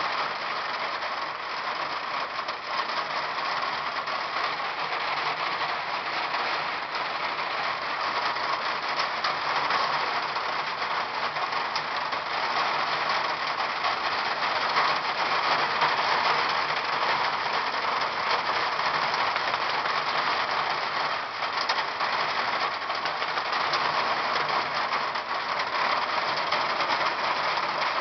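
Hail falling and striking the ground and nearby surfaces: a dense, steady clatter of countless small ticks.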